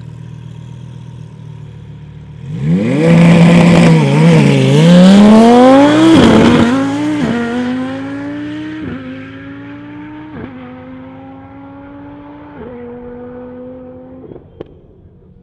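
Lamborghini Huracán V10 running steadily at the line, then launching hard about two and a half seconds in. The engine note climbs through the gears with about five quick upshifts, each a sudden drop in pitch, and fades as the car pulls away down the half-mile strip.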